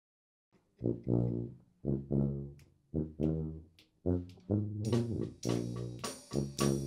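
A New Orleans brass band starting a tune: a low brass riff repeats about once a second. About five seconds in, the drums and cymbals join in with the rest of the band.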